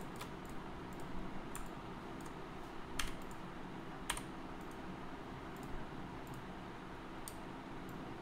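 Irregular clicks of a computer mouse and keyboard, a dozen or so, with two louder ones about three and four seconds in, over a faint steady hum.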